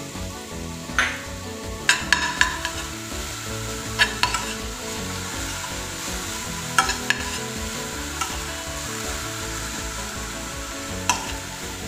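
A perforated stainless-steel spoon stirring poha with jaggery and cashews in a stainless-steel kadai, the mixture frying in ghee with a steady sizzle. The spoon clinks and scrapes against the pan now and then, sometimes two or three times in quick succession.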